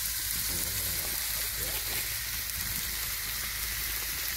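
Diced beef sizzling steadily as it browns in a hot black steel frying pan.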